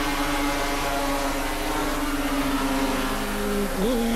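250cc Yamaha production racing motorcycles running at high revs, one steady engine note sinking slightly in pitch. Near the end a second, lower engine note comes in, with a brief dip and rise in pitch.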